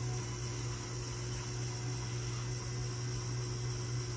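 A steady low hum over a constant hiss, unchanging throughout.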